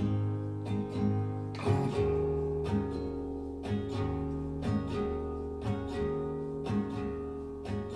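Recorded folk song playing through Grandinote Mach Nine loudspeakers during an instrumental passage between verses. Acoustic guitar strums and picks over a deep bass line, with new notes about once a second.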